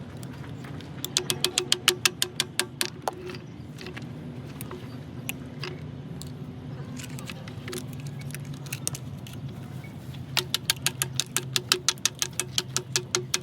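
Rapid metallic tapping, about seven sharp strikes a second, in two bursts: one near the start and one in the last few seconds, over a steady low machine hum.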